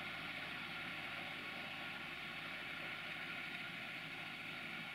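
SAME Taurus 60 DT tractor's diesel engine running steadily as the tractor drives slowly away, growing slightly fainter.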